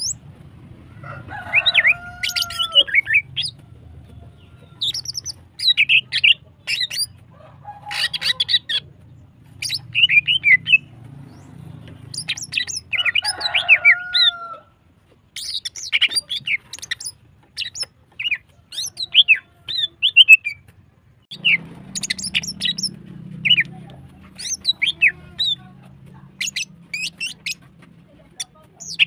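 Female greater green leafbird (cucak ijo) in breeding condition calling in repeated bursts of sharp high chirps and quick rattling phrases, with a few lower sliding whistles among them, over a faint steady low hum.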